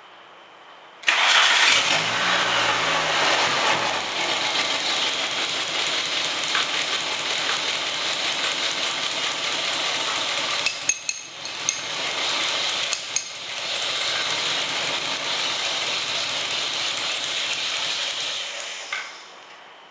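Volkswagen 2.0-litre four-cylinder engine starting about a second in and then running steadily, which the builder says is fuelled entirely by HHO (oxyhydrogen) gas. It dips briefly twice about halfway and stops shortly before the end.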